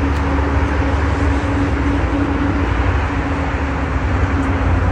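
A steady low mechanical drone: a constant deep rumble with a level hum over it, like a motor or engine running without a break.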